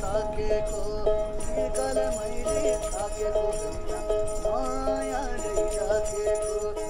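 Background music: a tune with jingling bells and a sliding melody over steady repeated notes.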